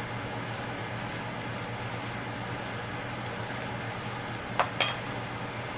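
Steady low hum and hiss of background room noise, with two short sharp clicks about four and a half seconds in.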